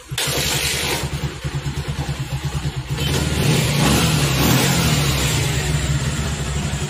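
Bajaj Pulsar 150's freshly rebuilt single-cylinder four-stroke engine firing up on its first start after reassembly and running, with a fast even beat. About three seconds in the revs rise and it runs louder.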